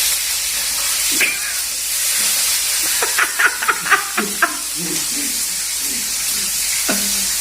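Fish frying in hot oil: a steady sizzle with a quick run of sharp pops and crackles in the middle.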